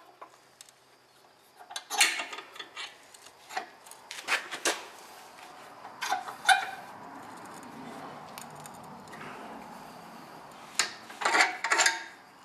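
C-clamp being screwed down by its T-handle on an Allis-Chalmers WD-45 hand clutch assembly, compressing the clutch's pressure washer: scattered metal clinks and knocks, with a few seconds of steady scraping rub around the middle.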